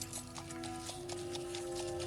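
Horse hooves clip-clopping, heard as many short, irregular clops, under background music with held notes.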